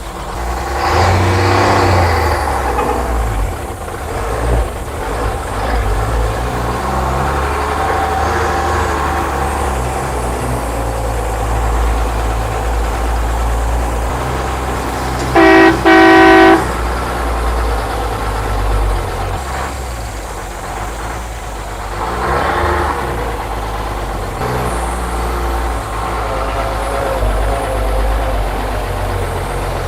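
Engine of an old Chevrolet Kodiak truck running under way, a long-dormant engine brought back to life after about 30 years, rising in revs early on and again about three quarters through. About halfway through the horn sounds two short honks, the loudest thing heard.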